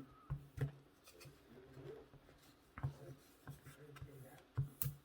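Light rubbing and scattered small taps and clicks of hands handling a smartphone and its film screen protector, with one sharper click near the end.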